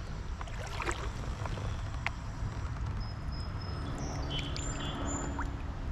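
Water moving around a kayak on a river, with a steady low rumble and a couple of light knocks about one and two seconds in.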